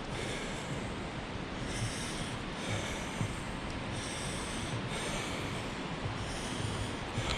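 A hiker breathing hard in steady rhythm, a hissing breath about once a second, over a steady rushing noise of wind on the action-camera microphone.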